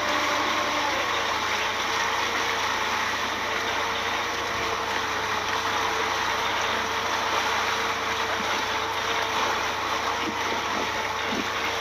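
Outboard motor of a small fishing boat running steadily, its note dropping a little about a second in, over a constant rush of wind and water.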